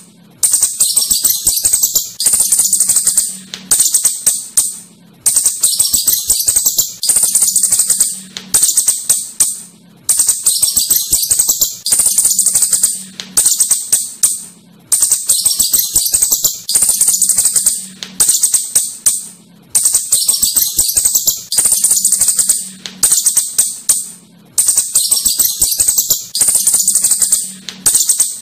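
Asian house shrew chittering: rapid, high-pitched rattling twitters in repeated bouts about every second and a half, with quick clicking between them.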